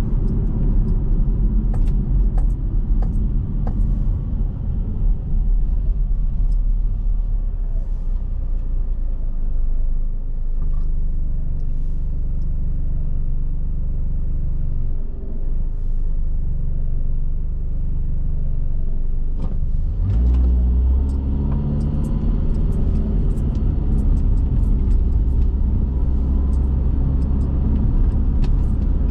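Car driving: a steady low engine and road rumble whose tone shifts about ten seconds in and again about twenty seconds in.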